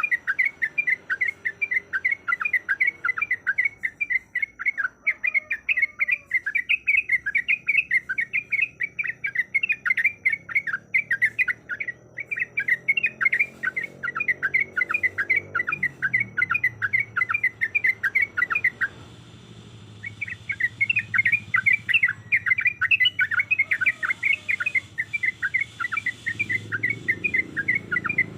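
Yellow-vented bulbul (trucuk) calling in a fast, unbroken string of short chirps, several a second, which stops for about a second two-thirds of the way through and then resumes.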